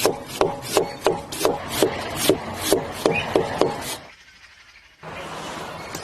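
Rhythmic scraping strokes, about three a second, a rasping rub like a tool worked back and forth, stopping a little before four seconds in. After a short quiet gap a steady hiss begins near the end.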